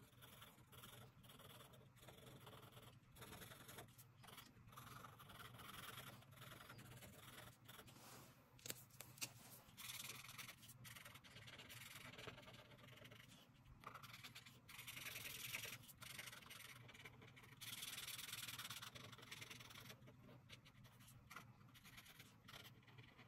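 Felt-tip marker rubbing back and forth on paper as an area is coloured in: faint, scratchy strokes, louder in a few stretches after the middle.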